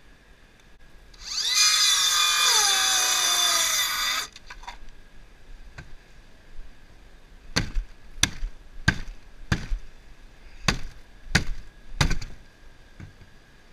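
Cordless power drill running for about three seconds, its pitch wavering as it loads up, followed later by about seven sharp knocks, a little under a second apart.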